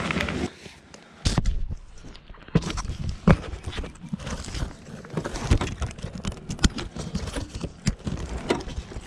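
Handling noise from a GoPro action camera being picked up and held: irregular knocks, bumps and scrapes of a hand gripping the camera right at its microphone, with a sharp knock about a second in.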